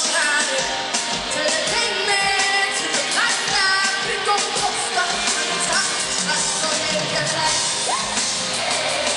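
Live band playing a pop song through an arena PA, with a woman singing lead into a handheld microphone over a steady drum beat, heard from the audience.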